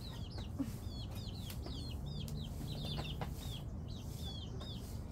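Young chickens peeping without a break: a run of short, high chirps that fall in pitch, several a second, over a steady low rumble.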